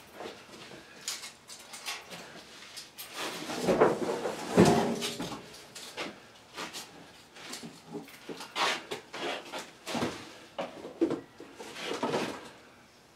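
Objects being handled and set down: irregular clatter, knocks and scrapes, loudest about four to five seconds in.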